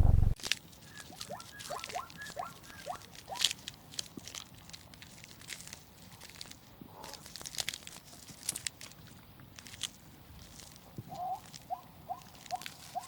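Irregular crunching clicks, with two runs of short falling chirps, about three a second, one near the start and one near the end.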